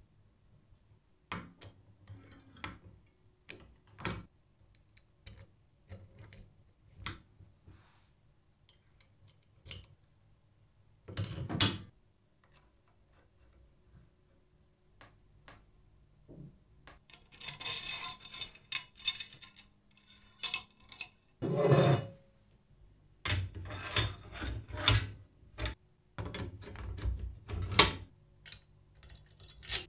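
Hand-fitting of a restored scooter's steel steering-stem and latch parts: scattered light clicks and knocks of metal on metal, then longer stretches of scraping and rubbing as parts slide together in the second half.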